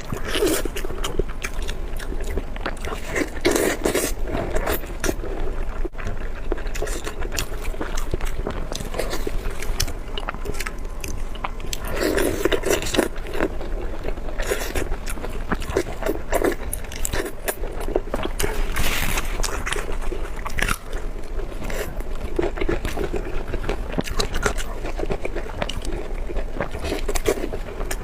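Close-miked eating: a person biting and chewing food, with a dense run of short, crisp clicks and crunches throughout.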